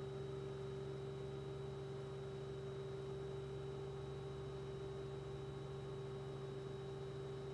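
A steady hum with a faint hiss that does not change. There are no other sounds.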